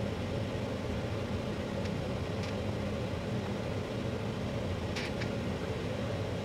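Steady low background hum with no speech, marked by a few faint short ticks about two and a half and five seconds in.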